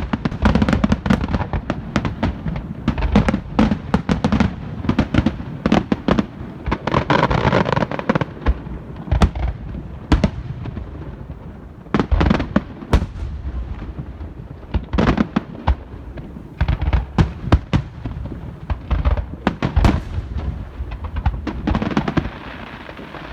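Neighborhood fireworks going off: a long run of irregular sharp bangs and pops, with a stretch of crackling about seven seconds in and a few brief lulls between volleys.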